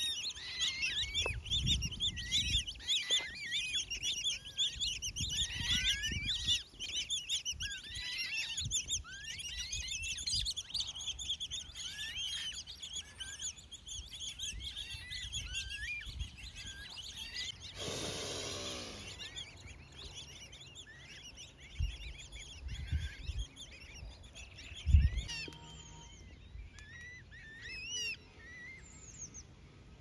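Many short, high-pitched peeping calls in quick succession, thick over the first ten seconds and sparser after, from Eurasian coot chicks begging on the water. Low thumps come and go beneath them, the loudest near the end, with a brief rushing noise a little past halfway.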